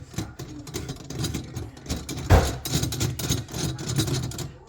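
Metal handling noises of a garbage-disposal sink mounting assembly as its bolts are tightened: scattered clicks and knocks, with one louder knock about two seconds in.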